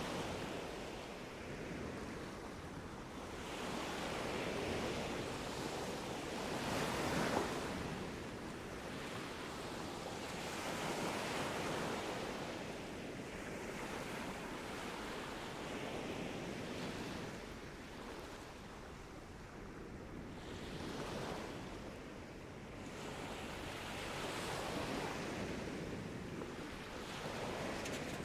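Sea waves breaking and washing onto a beach, surging and falling back every few seconds, with the loudest break about seven seconds in.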